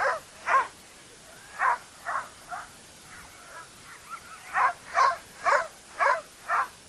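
Harnessed sled dogs barking: short, sharp barks about two a second, in two spells with a pause of about two seconds between them.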